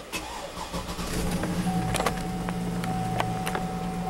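2005 Cadillac Escalade's electrical accessories coming on: a steady low hum rises about a second in, joined shortly after by a high steady whine, with a few light clicks.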